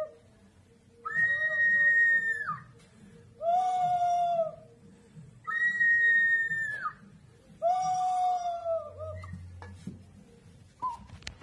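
Two Peruvian ceramic whistling vessels shaped as birds, tipped in turn, giving four long whistling hoots of about a second and a half each, alternating between a high note and a lower one, each dropping in pitch as it ends. A light knock near the end.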